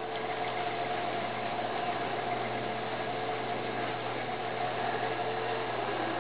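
Electric potter's wheel motor running steadily with a constant hum, one of its tones dipping slightly near the end.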